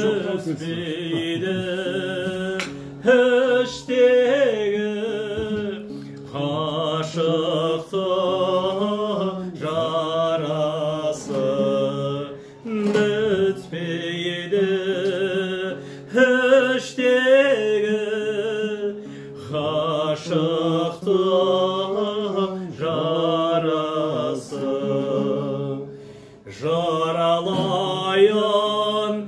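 A man singing a song in Kazakh with vibrato, in phrases of a few seconds with short breaks, to his own strummed dombra.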